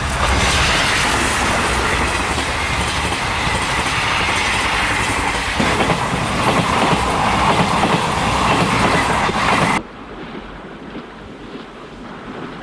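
Blue sleeper-express passenger coaches rolling past close by, wheels clattering over the rail joints under a steady rushing noise. About three-quarters of the way through it cuts off abruptly to a much quieter low hum.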